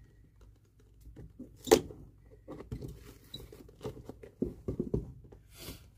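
Glued rubber sole guard being pulled off a leather shoe sole with pincers: the glue bond giving way in a run of small crackling tears. One sharp click, the loudest sound, comes just under two seconds in.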